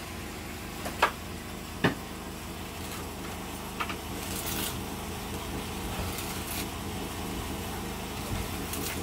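Plastering trowel working wet plaster along a perforated metal corner bead: two sharp clicks about a second and two seconds in, then a few short scraping swishes as the trowel is drawn across the wall, over a steady low hum.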